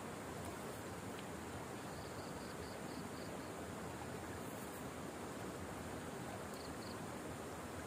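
Steady outdoor hiss with faint, high insect chirps: a run of about five quick chirps about two seconds in, and two more near the end.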